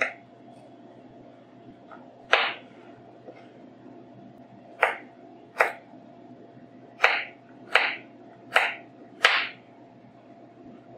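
Ceramic chef's knife chopping through carrot strips and knocking on the cutting board: eight separate sharp knocks, slow at first and quicker in the second half, as the small, light blade struggles through the dense carrot.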